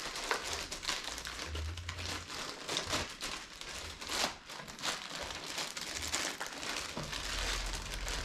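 Packaging bag crinkling and rustling in irregular bursts as a canvas beach tote is taken out of it and unfolded.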